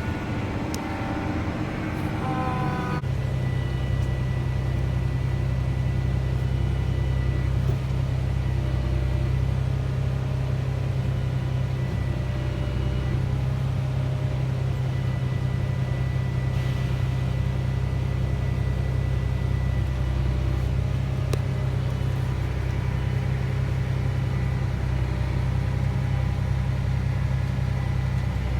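John Deere S780 track combine running with a steady low drone. The drone changes abruptly about three seconds in and then holds one even pitch.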